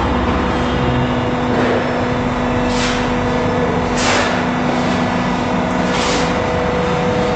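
Vacuum emulsifying mixer running with a steady motor hum, with three short hisses about three, four and six seconds in.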